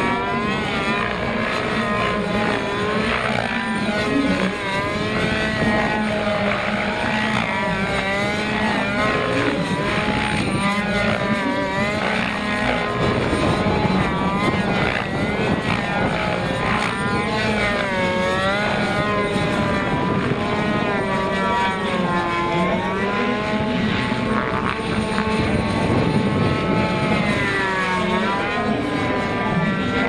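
Gas-engined Wiplash Gasser RC helicopter, with a rotor of about 1.7 m, flying aerobatics: the engine and rotor sound rises and falls in pitch again and again as the model is thrown through its manoeuvres.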